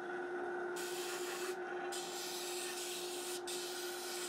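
Bench disc sander running with a steady hum while a small dark hardwood strip, the insert for filling a guitar bridge's saddle slot, is pressed against the disc in three passes. Each pass is a second or more of sanding hiss, with short breaks between them.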